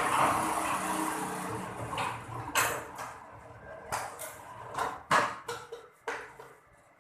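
A dense noisy clatter for about two seconds, then a string of separate knocks and swishes a second or so apart, fading out near the end.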